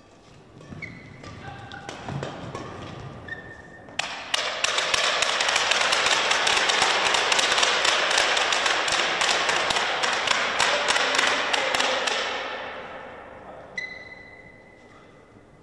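Badminton rally: shoes squeak on the court and a racket hits the shuttlecock. About four seconds in, a hall crowd breaks into applause that lasts about eight seconds and then dies away. One more short shoe squeak comes near the end.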